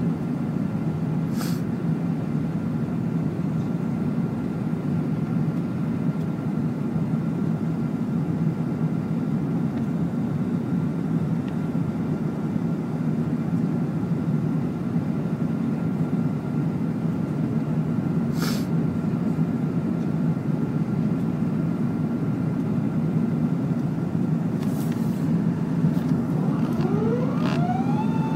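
Jet airliner cabin noise heard through the window seat on approach with flaps extended: a steady deep rumble with hiss and a faint steady high tone, broken by a few brief clicks. Near the end a whine rises in pitch and then holds steady.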